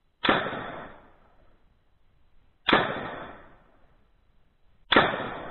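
Three shots from a SIG 516 5.56 mm AR-15 rifle, slow aimed fire about two and a half seconds apart. Each is a sharp crack that rings away over about a second, heard from the target end of the range.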